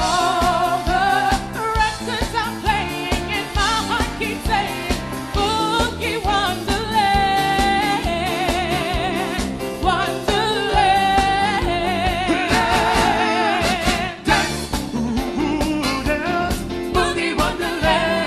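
A band playing a song with a singer holding long notes with a wide vibrato, over a steady drum beat and bass.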